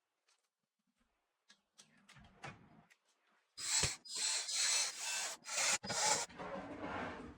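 A few faint clicks, then from about halfway a series of about five loud rubbing and scraping strokes, with a sharp knock at the first: PC hardware being handled and slid into place.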